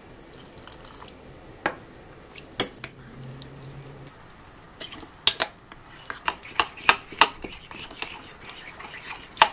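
A spoon clinking against a bowl while stirring water into a thick semolina and yogurt batter. A few sharp clinks at first, then a quicker run of them through the second half.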